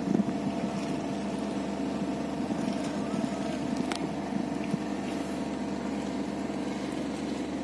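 Ship's engine running with a steady, even drone. A single sharp click sounds about four seconds in.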